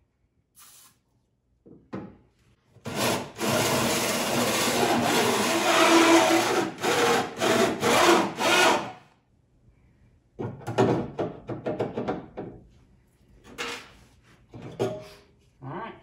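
Cordless drill with a 2 1/8-inch hole saw cutting through the sheet-steel side wall of a pickup bed: about six seconds of steady loud cutting that breaks into short on-off bursts near the end. After a pause come a few seconds of irregular clatter and scraping.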